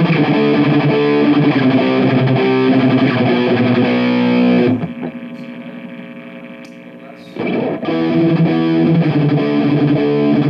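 Kramer electric guitar played through a Sondery Distortion pedal with the gain cranked all the way up, into a Marshall amp and cabinet: heavily distorted riffing. A little before halfway the picking stops and a chord rings out quieter and fading, then the riffing starts again about three quarters of the way in.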